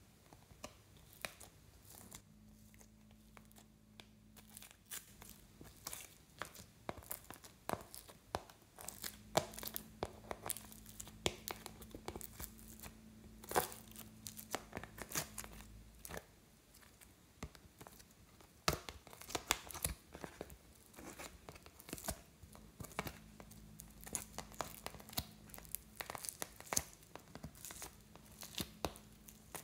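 Foam-bead slime (floam) being peeled out of a plastic palette tray and squeezed by hand, giving dense, irregular sticky crackles and pops.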